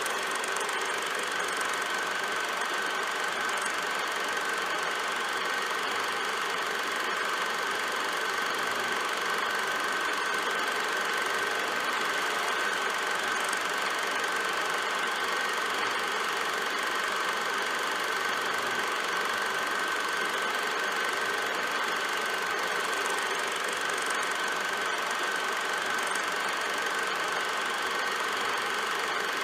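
Film projector running: a steady mechanical whir with a constant high whine, unchanging throughout.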